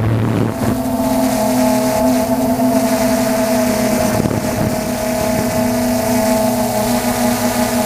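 DJI F450 quadcopter's motors and propellers whining steadily in flight, heard from on board, the pitch stepping up just under a second in and then holding.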